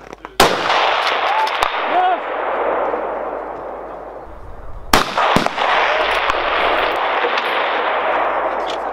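Two precision rifle shots about four and a half seconds apart, each a sharp crack followed by a long echo rolling back off the surrounding hills and woods.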